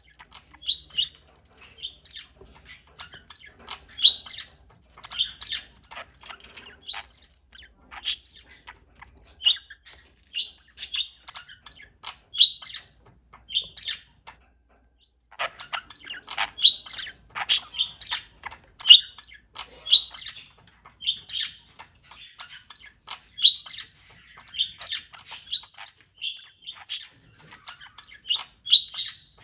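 Pet parakeet chirping: short, sharp chirps in quick, irregular succession, with a brief pause about halfway through.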